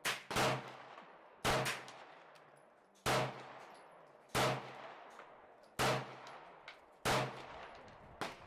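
Pistol shots on a shooting range, eight in all. The first two come close together, and the rest follow singly about every second to second and a half, each with a short echoing tail.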